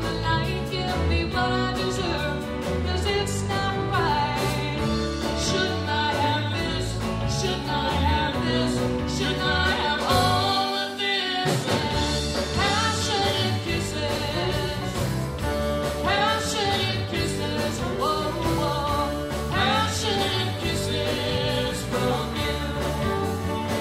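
Live band playing a song, with a woman singing lead over electric guitars and drums. The low end cuts out for about a second near the middle before the band comes back in.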